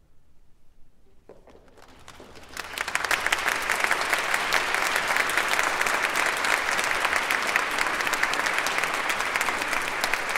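Concert audience applauding: it begins faintly and swells to full, steady applause about two and a half seconds in.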